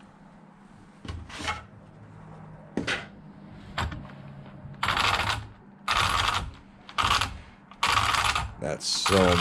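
RC car steering servo driving the front wheels from lock to lock, giving short gear-whirring bursts. It starts with a few brief twitches, then settles into about five loud sweeps roughly a second apart, showing off the servo's torque.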